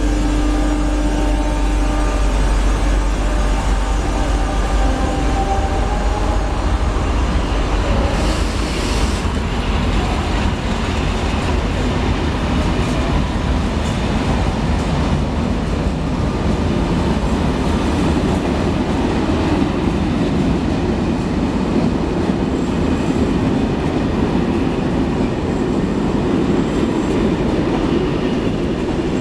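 Passenger train coaches rolling past along the platform: a steady rumble of wheels on rails, with a short hiss about eight seconds in.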